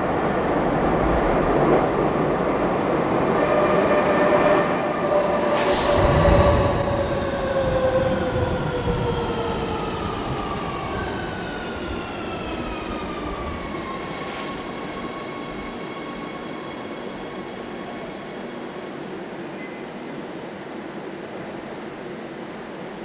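Metro train running with a loud rumble; its motors' whine slides down in pitch over several seconds as the train slows, with a sharp click partway through, and the noise settles to a steady lower hum near the end.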